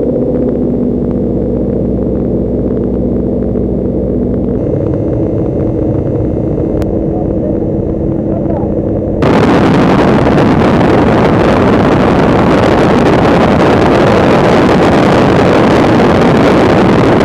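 Light aircraft's piston engine droning steadily inside the cabin. About halfway through, the sound jumps suddenly to a much louder, steady rush of wind and engine noise as the jump door stands open to the slipstream.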